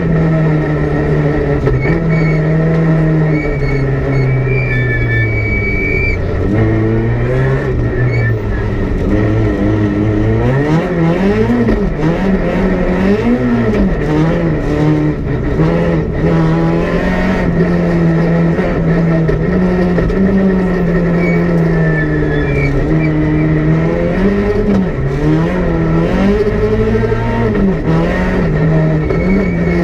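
Peugeot 208 R2 rally car's 1.6-litre four-cylinder engine, heard from inside the cabin, driven hard on a stage. Its pitch climbs and drops over and over as the driver works through the gears and lifts off for corners, with quicker dips and rises in the twisty middle section.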